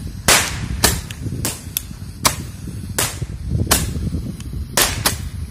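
Handheld roman-candle firework tubes firing, a string of about eight sharp pops spaced roughly half a second to a second apart.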